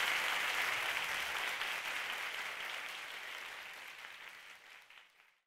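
Audience applause, fading steadily away and giving way to silence near the end.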